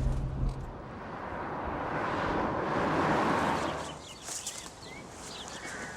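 A car engine's low hum that ends under a second in, then a swelling rush of noise that fades out about four seconds in, followed by birds chirping.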